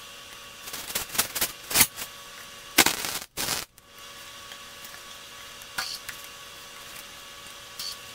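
Harbor Freight 220V MIG welder's arc crackling and spitting in short tack-weld bursts on steel frame rails. A few spurts come about a second in, then a longer burst near three seconds, and two faint clicks follow later.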